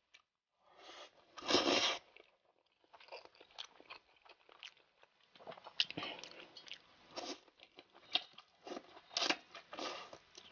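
Close-miked eating: a loud slurp of noodles about a second and a half in, then chewing with scattered soft crunches and smacks.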